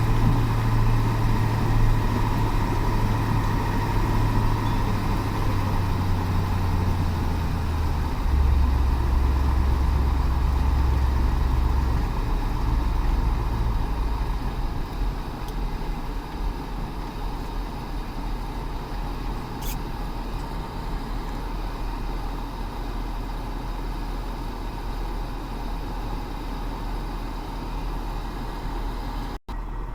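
Heavy truck engine running steadily. Its low hum drops in pitch about eight seconds in, then grows quieter partway through. The sound cuts out for an instant near the end.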